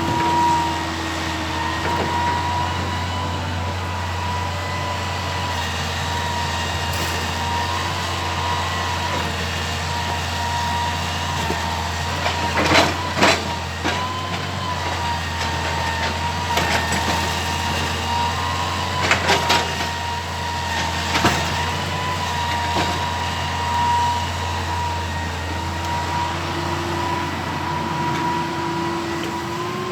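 Excavator's diesel engine running steadily under load, with a high whine that wavers slightly in pitch. A handful of sharp knocks come around the middle, clustered in pairs, as logs are handled and stacked.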